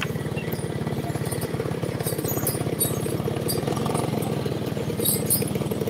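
A motor engine idling steadily nearby, its firing pulses even throughout, with scattered light high clinks over it.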